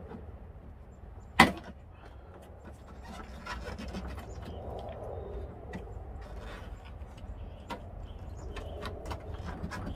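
Plastic interior trim panel on a Honda tailgate being pried off with a plastic trim tool: one sharp snap of a retaining clip letting go about a second and a half in, then rubbing and small plastic clicks as the panel is worked loose.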